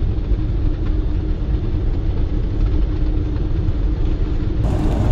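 Steady low rumble of a car being driven, heard from inside the cabin, with a faint steady hum over it. The sound shifts abruptly and turns brighter near the end.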